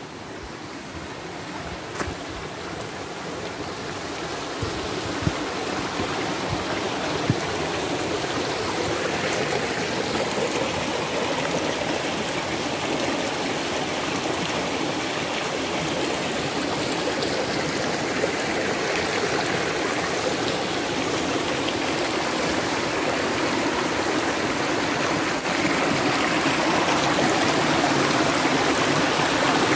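Running water of a stream, a steady rushing that grows gradually louder, with a few light clicks in the first seconds.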